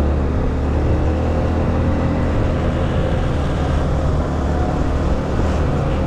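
A vehicle engine running steadily on the move, a constant low drone with road noise.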